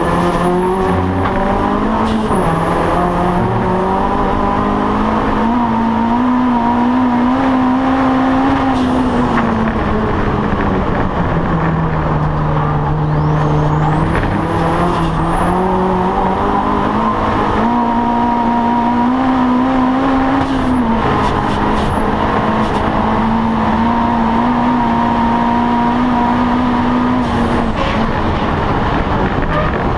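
Audi TT race car's engine heard from inside the cockpit under racing load, its pitch climbing, holding and dropping several times as the car accelerates and lifts off. A thin high whine rises and falls along with the engine.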